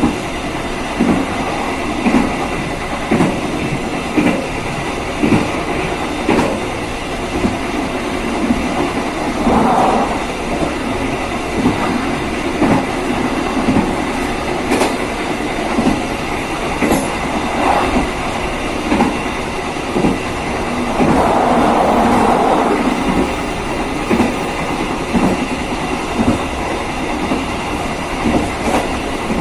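KA Serayu passenger train running along the rails, its wheels clicking over rail joints about once a second over a steady rumble of running noise. A louder rush of noise swells for a couple of seconds about two-thirds of the way through.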